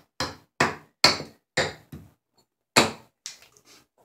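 Hatchet chopping into an American sycamore spoon blank held on a wooden chopping stump, thinning it out: a run of sharp chops about two a second, a short pause, one last chop near three seconds in, then a few light knocks.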